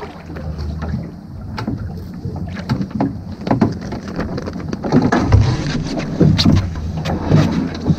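A small Woods Bee sailing dinghy gybing. Wind and water noise fill the background, with scattered knocks and clicks from the rigging and boom as the sail swings across. The gusts are strongest from about five seconds in.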